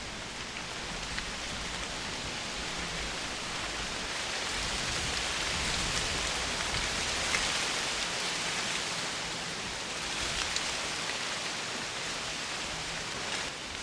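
Steady rain falling, a hiss that swells a little toward the middle, with scattered single drops ticking.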